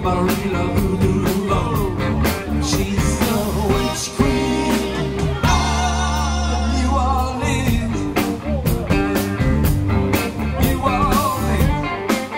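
Live rock band playing a song: electric guitars, bass guitar and drum kit, with a singing voice over them.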